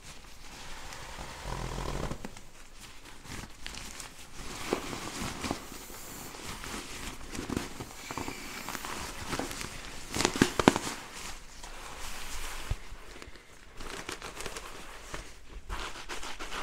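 Crinkling and rustling of a nylon pump sack as it is twisted shut and squeezed to force air into a Therm-a-Rest NeoAir XTherm Max inflatable sleeping pad, topping it up. The sharpest crinkles come about ten seconds in.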